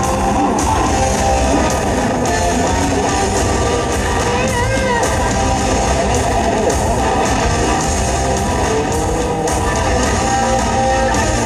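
Loud guitar-led rock music playing steadily.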